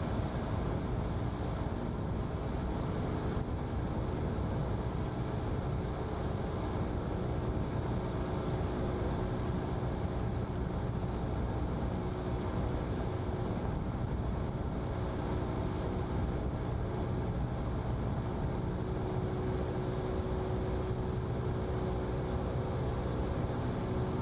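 Single-engine Cessna's piston engine and propeller running steadily at reduced descent power in the pattern, heard inside the cabin as an even drone with a steady hum of engine tones.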